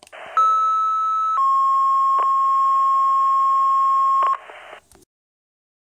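Two-tone sequential dispatch page over a scanner radio: a higher tone for about a second, then a lower tone for about three seconds, over radio hiss that cuts off with a click about five seconds in. It is the alert that calls out the fire department before the dispatcher speaks.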